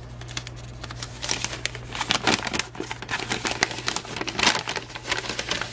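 Folded paper instruction leaflet being unfolded and handled, crinkling and rustling irregularly, busier from about a second in.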